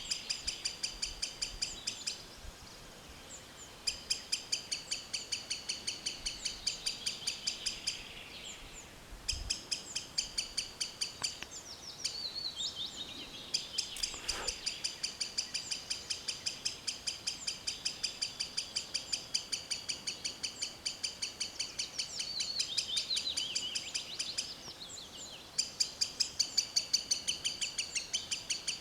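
Green sandpiper calling a rapid, even series of sharp, high notes, about five a second, in long bouts broken by a few short pauses. Fainter calls of other birds are heard in the pauses, and there is a single knock about halfway through.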